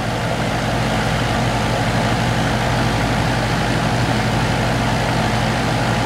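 Outdoor R-410A air-conditioning condensing unit running: a steady hum from the compressor under the even rush of the condenser fan.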